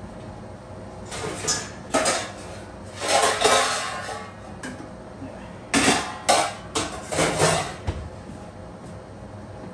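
Stainless steel pot lids and pans clattering and clanking as they are lifted and set down, in a run of bangs and scrapes with metallic ringing.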